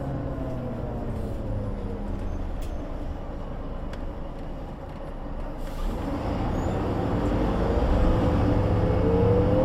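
1998 MAN NG 312 articulated city bus in motion. Its running note and a whine fall away at first as it slows. From about six seconds in it grows louder and the whine rises steadily as the bus accelerates again.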